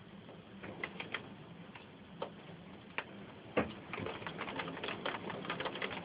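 Large hailstones striking the house: scattered sharp knocks at first, coming much thicker from about halfway in, with one louder knock just after the middle.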